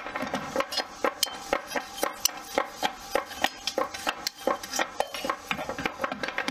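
Hammer blows on red-hot knife steel over an anvil, several sharp metallic strikes a second with a ringing undertone: the finishing cross-forging (jumonji kitae) of a blade.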